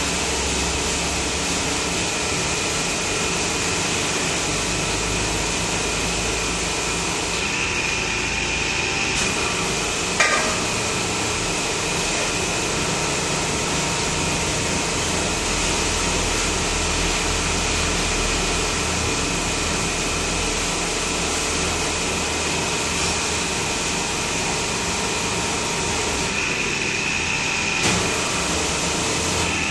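Steady machine noise of a busy motorcycle workshop, with a sharp knock about ten seconds in and another near the end.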